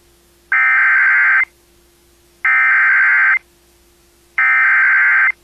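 Emergency Alert System SAME header: three bursts of digital data tones, each about a second long with about a second between them, the coded header that opens a new emergency alert.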